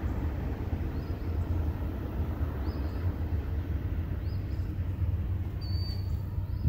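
Union Pacific manifest freight train rolling by in the distance: a steady low rumble of its cars on the rails.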